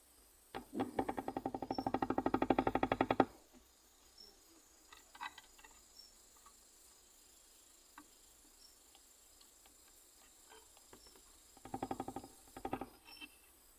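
Nesonotus reticulatus katydid stridulating: a rapid train of clicks lasting about three seconds that grows louder, then a few scattered clicks and a second, shorter click train near the end.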